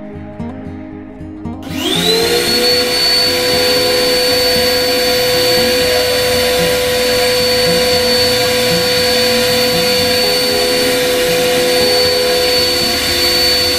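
Electric wood lathe starting about two seconds in, its motor whine gliding up in pitch as it spins up to speed and then running at a steady high whine, over background music.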